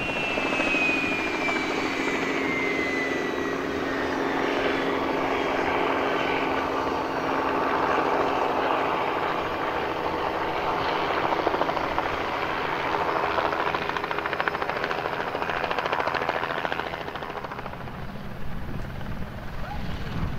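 Aircraft turbine engine running at close range: a steady drone with a rapid chopping texture, and a thin high whine that glides down in pitch over the first few seconds.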